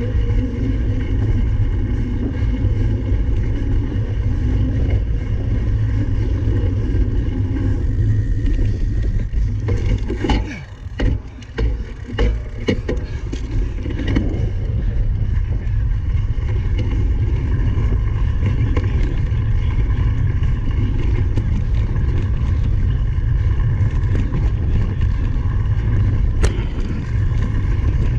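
Heavy, steady wind rumble on the microphone of a cyclocross rider's camera. About ten to thirteen seconds in the rumble briefly drops and a few sharp clicks and knocks come through.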